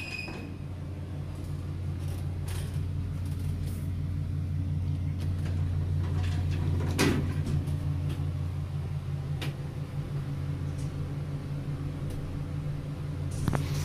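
A car running: a steady low hum that grows louder over the first several seconds, with a few scattered clicks and knocks.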